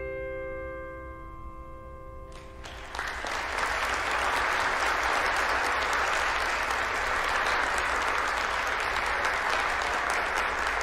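A piano chord ringing out and fading, then an audience clapping steadily from about three seconds in.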